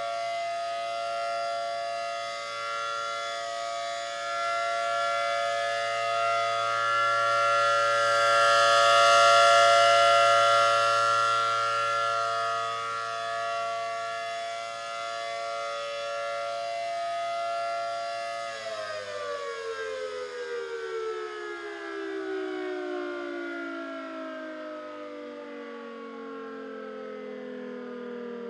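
ACA Allertor 125 rotating outdoor warning siren sounding a steady full-alert test tone. It swells to its loudest about nine seconds in as the rotating horn sweeps toward the listener, then eases off. About eighteen seconds in it shuts off and winds down, its pitch falling steadily.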